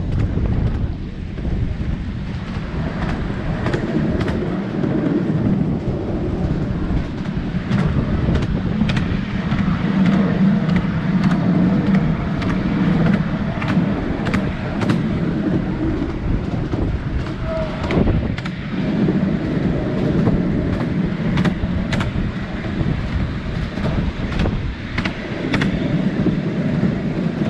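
Ride-on miniature railway train running along its track: a steady low rumble from the wheels and locomotive, with sharp clicks every second or so.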